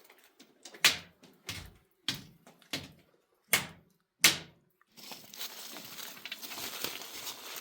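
A series of sharp knocks or thuds, about six of them at uneven intervals under a second apart, then from about five seconds in a steady crackling, rustling noise.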